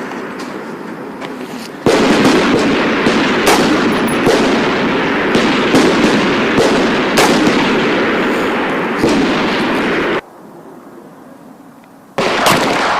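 Small-arms gunfire on a firing range: many shots from several shooters overlapping, each with a rolling echo. The level steps sharply up about two seconds in, drops to a much quieter stretch about ten seconds in, and jumps back up about twelve seconds in.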